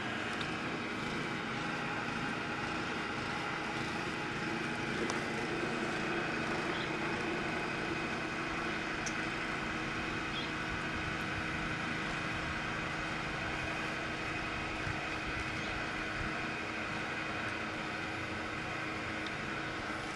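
Steady background rumble and hiss with a faint hum, swelling a little about five seconds in and easing off a few seconds later.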